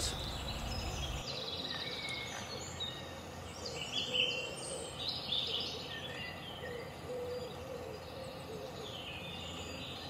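Small garden birds chirping and calling over a low outdoor background, with a cluster of quick high chirps about four to five seconds in.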